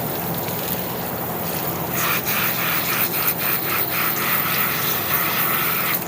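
Rough rubbing and scraping, a steady rasp that turns harsher and louder about two seconds in, broken by several short strokes.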